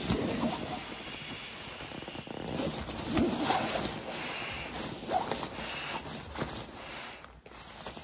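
Therm-a-Rest pump sack being rolled and squeezed by hand to push air into an inflatable sleeping pad: thin fabric rustling and crinkling unevenly, loudest about three seconds in.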